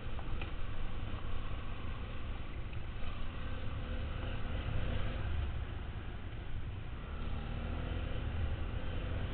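Dual-sport motorcycle engine running under way on a dirt trail, its steady note half buried in heavy wind buffeting on a helmet-mounted camera.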